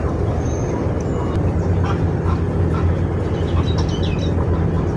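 A steady low motor hum, with a few short high chirps between about three and a half and four and a half seconds in.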